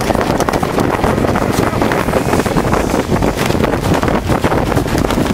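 Wind buffeting the camera microphone on a sailing yacht under way: a loud, steady rumble with uneven low gusts.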